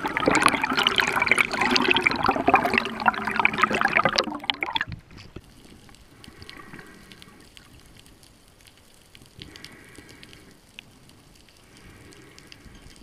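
Water rushing and bubbling past an underwater camera for about four seconds, then it cuts off sharply to a much quieter underwater hush with three faint swells of sound.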